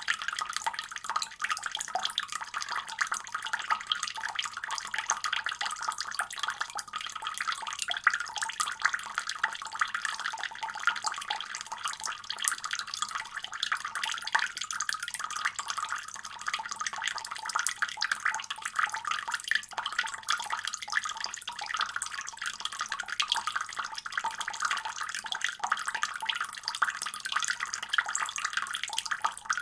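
Water running steadily from a faucet and splashing into a basin, a continuous dense spatter with no breaks.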